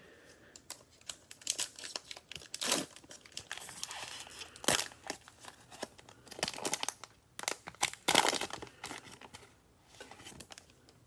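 Crinkling and tearing of a cellophane-wrapped trading card pack being ripped open by hand, in irregular crackles with several sharper rips.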